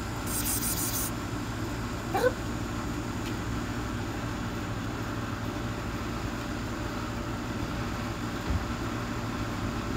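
A cat meows once, a short rising call about two seconds in, over a steady low background hum.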